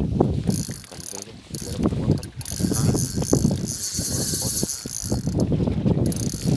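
Fishing reel's ratchet clicking in fast runs that stop and start a few times while a hooked fish is played on the rod.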